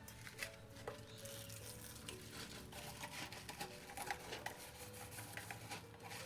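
Soft background music with a light steady hiss and scattered small clicks starting about a second in.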